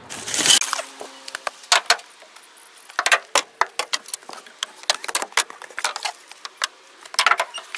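Irregular clicks and rustles from dry leaves, twigs and old cloth being grabbed and moved by hand, with a short burst of rustling at the start.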